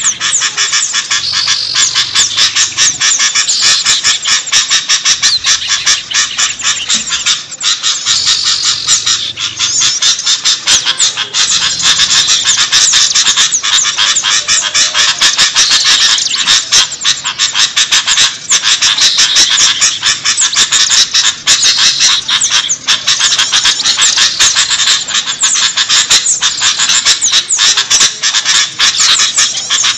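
A dense, unbroken chorus of many small songbirds chirping and twittering over one another: a mixed-species bird-lure (pikat) recording.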